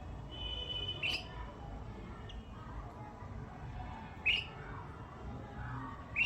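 A bird calling: three short, sharp calls about three seconds apart, the first preceded by a brief steady whistle-like tone, over low background rumble.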